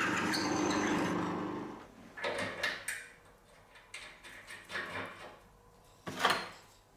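A drill press runs with its bit in a steel washer, then winds down and stops within the first two seconds. After it, a handful of short metal clinks and clunks as the washer is fitted onto a bolt held in a bench vise, the loudest near the end.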